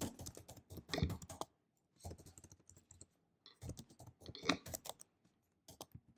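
Typing on a computer keyboard: quiet runs of key clicks broken by short pauses.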